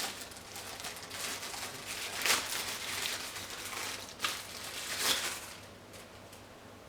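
Packaging being handled as items are taken out of a box: rustling and crinkling with a few short, louder scrapes, quieting down about five and a half seconds in.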